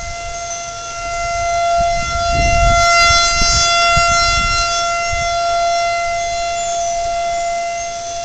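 Outdoor tornado warning siren sounding one steady, held tone that swells louder a couple of seconds in and then slowly fades. A low rumbling noise lies under it in the middle.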